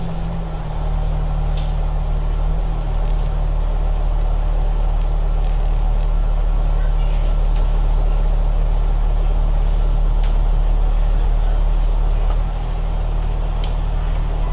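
Alexander Dennis bus engine running as the bus drives, heard from inside the passenger cabin: a steady low drone with road noise and a few faint ticks. The drone eases slightly near the end.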